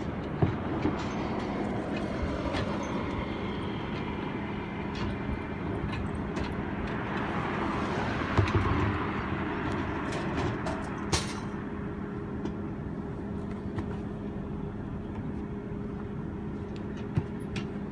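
Garbage truck's diesel engine running steadily, with scattered metallic clanks and knocks.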